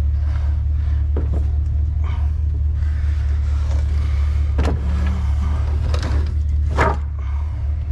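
Steady low drone of a car or truck driving, heard from inside the cab, with two or three short knocks or rattles, the loudest near the end.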